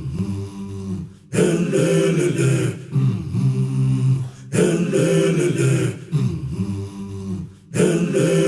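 Maasai chanting: a group of low voices singing a cappella, with a phrase that comes back about every three seconds.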